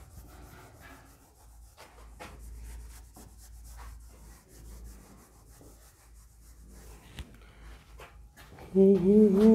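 Whiteboard duster rubbing across a whiteboard, wiping off marker writing in short, soft strokes. Near the end a man starts humming a wavering tune, which is louder than the wiping.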